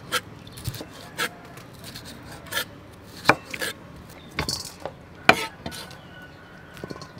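Kitchen knife slicing red pepper into strips on a wooden chopping board: about ten irregular knocks of the blade striking the board, the loudest about three and five seconds in.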